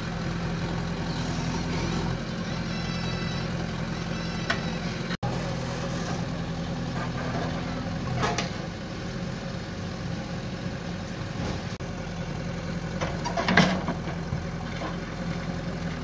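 JCB 3DX backhoe loader's diesel engine running steadily while the backhoe arm digs, with a few short knocks from the digging, the loudest about three-quarters of the way through.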